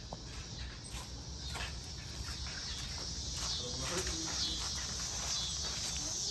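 Steady high chirring of insects, a little louder in the second half, with light footsteps on dry dirt and grass and a few faint knocks.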